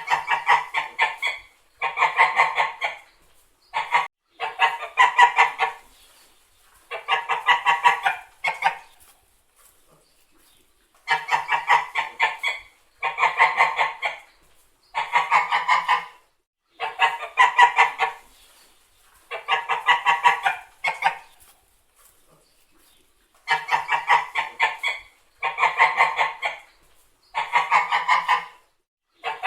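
White domestic geese honking: about a dozen runs of rapid, short honks, each run lasting a second or so, with short pauses between them.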